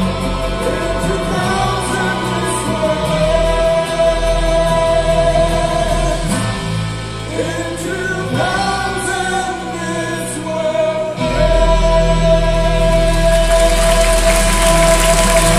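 Cast of a stage musical singing together, choir-like, over music. About eleven seconds in the music swells with heavier bass, and audience applause rises near the end.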